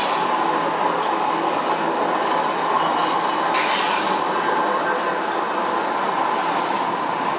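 Modern low-floor tram passing close by, with the steady rolling noise of its steel wheels on the street rails and a couple of brief hissing swells.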